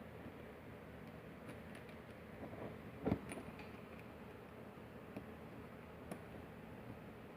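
Small metal parts of a padlock being handled during reassembly: scattered light clicks, with one louder metallic knock and short clatter about three seconds in, as the latches are worked into place with a screwdriver.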